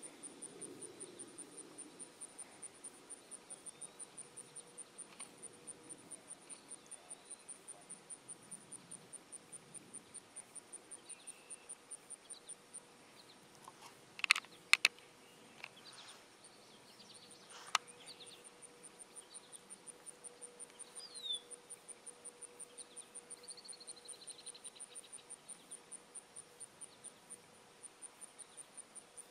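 An insect chirping steadily in the marsh, a high, evenly repeated chirp about three or four times a second. A few sharp clicks, the loudest sounds, break in around the middle, and a couple of faint high calls come about two-thirds of the way through.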